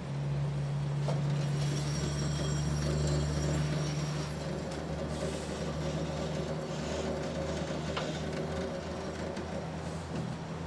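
Rope feed drive of a homemade band sawmill on test run, its motor winding the rope to pull the saw carriage along the steel track: a steady low hum with a few light clicks.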